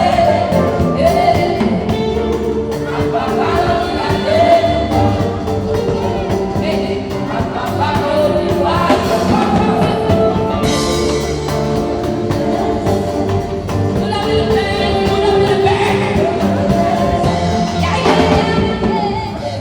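Music with a singing voice, steady and full throughout.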